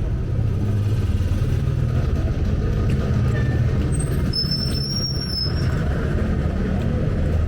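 Street traffic with a motor vehicle's engine running close by, a steady low drone. About four seconds in there is a brief high-pitched squeal lasting just over a second.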